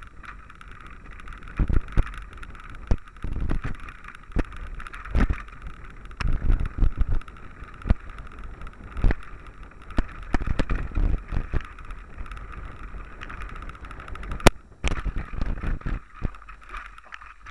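Mountain bike going fast down a rough dirt trail: the camera picks up irregular knocks and rattles from the bike jolting over the ground, over a steady hiss, with one sharp click near the end.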